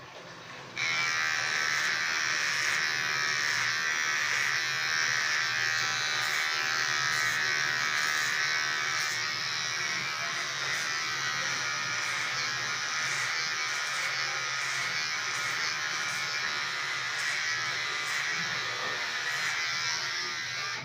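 Electric hair trimmer buzzing steadily as it shaves the hair on the back and sides of the head. It switches on about a second in and stops at the end.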